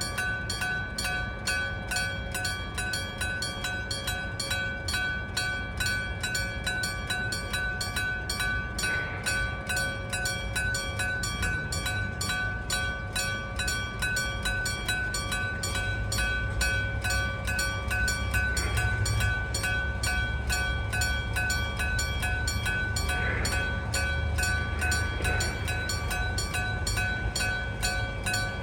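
Electromechanical bell of a Japanese electric-bell level crossing (denshō-shiki fumikiri) ringing continuously with rapid, evenly spaced strikes, the warning that a train is coming. A train's low rumble builds from about halfway and carries on to the end.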